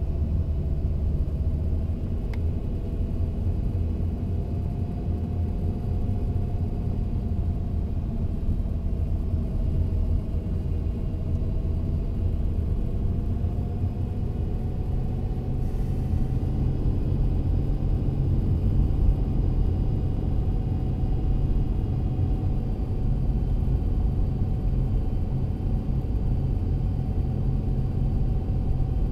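A car's engine and tyres rumbling steadily while driving on a paved road, heard from inside the cabin, with a faint steady whine that drifts slightly in pitch.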